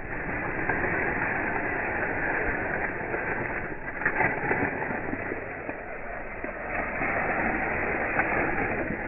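Plastic bag crinkling and rustling as it is handled, with sharper crackles about four seconds in.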